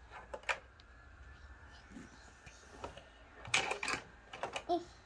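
Plastic clicks and rattles of a Hot Wheels toy track set and a die-cast car being handled: one click about half a second in, then a quick run of clicks and clatter in the last second and a half.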